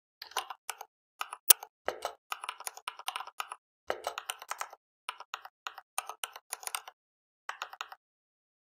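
Typing on a computer keyboard: quick runs of key clicks with short pauses between them, and one louder click about a second and a half in.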